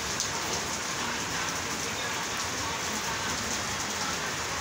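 Rain falling steadily, splashing on wet concrete.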